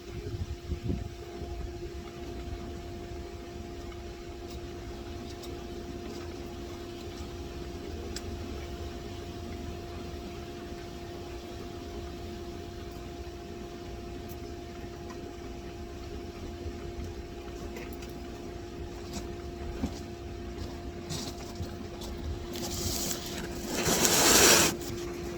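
Air-conditioning condenser unit running with a steady hum. Near the end a loud hiss lasts about two seconds.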